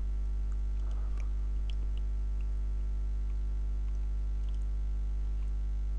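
Steady electrical mains hum with a buzzy stack of overtones, picked up by the recording microphone. A few faint clicks come about a second in.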